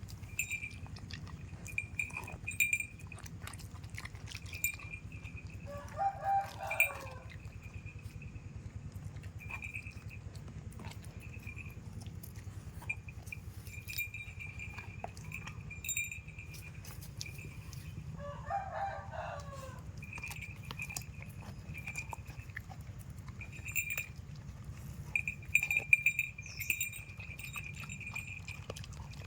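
A dog chewing and crunching on a coconut, in irregular crunches that are loudest near the end. A rooster crows twice in the background, about a dozen seconds apart.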